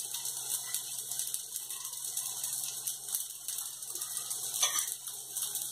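Semolina (suji) batter sizzling in a thin layer of oil in a nonstick frying pan: a steady hiss with fine crackling.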